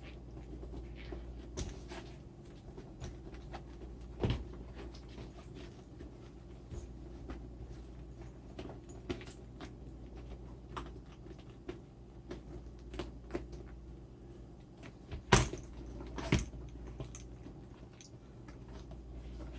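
A stitched leather handbag being handled and turned right side out: scattered rustling and clicking, with a louder knock about four seconds in and two more knocks a little past the middle, over a steady low hum.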